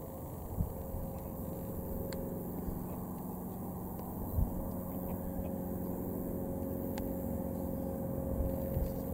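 Vintage biplane's piston engine droning steadily overhead. Two low thuds come through, one about half a second in and a louder one a little before the middle.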